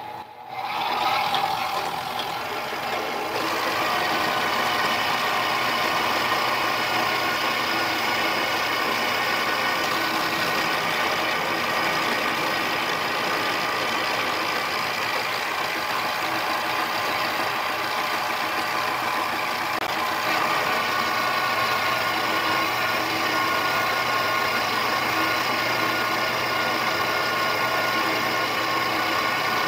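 Mini lathe starting up about half a second in, then running steadily with a whine from its motor and gears while the tool takes a facing cut on a 6061 aluminium blank.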